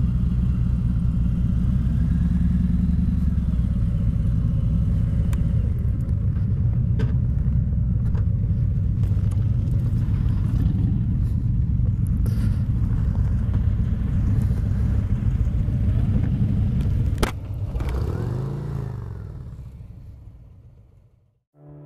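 2017 Harley-Davidson Road King's Milwaukee-Eight V-twin with RCX slip-on mufflers idling with a steady low rumble. About 17 seconds in there is a sharp click and the rumble drops. A brief rise and fall in engine pitch follows before the sound fades away.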